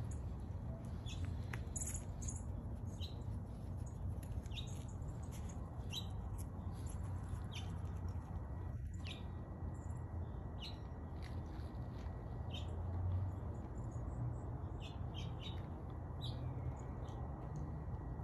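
Small birds chirping, many short high chirps at irregular intervals over a low steady rumble.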